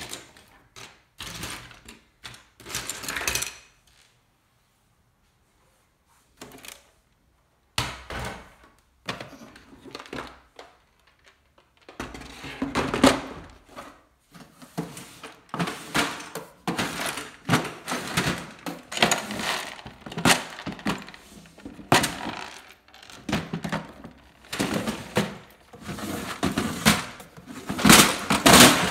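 Loose plastic Lego bricks clattering and clinking as a hand rummages through them, in irregular bursts with a silent gap a few seconds in and busier rattling through the second half.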